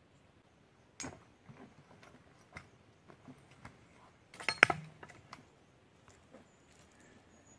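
Handling sounds: scattered sharp clicks and knocks of tools and wood being moved about, with one sharp click about a second in and a louder quick cluster of knocks about halfway through.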